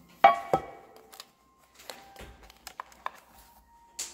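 Kitchenware knocking and clinking: two sharp knocks near the start that ring briefly, then a few lighter clicks and taps, and one more sharp click near the end.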